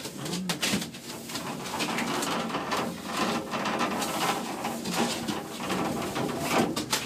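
Irregular rustling, clicks and knocks inside a moving gondola cabin.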